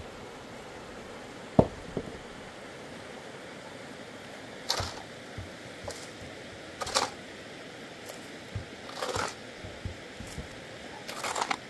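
A shovel scraping through a pile of sand-and-cement mortar on the ground in several short strokes, mixing it. A sharp knock comes about a second and a half in.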